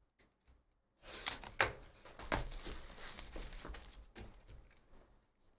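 Trading-card box packaging being handled and opened: crinkling wrapper and cardboard rustle with several sharp snaps, starting about a second in and fading near the end.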